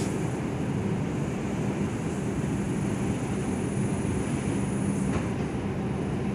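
R142 subway car pulling out of the station, heard from inside the car: a steady rumble with a low motor hum, and a faint click about five seconds in.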